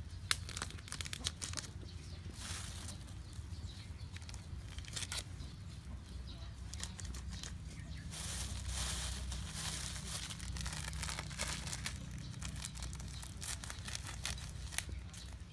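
Small plastic packets crinkling and rustling as they are handled and cut open with a kitchen knife, with scattered sharp clicks and a longer rustle about eight seconds in.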